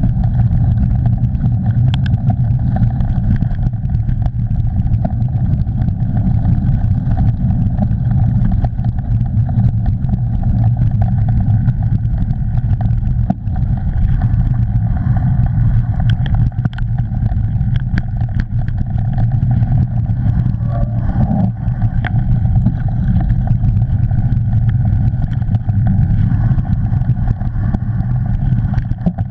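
Steady low rumble of wind buffeting and tyre noise on a mountain bike's action camera riding fast along a muddy trail, with scattered sharp clicks and rattles as the bike goes over bumps.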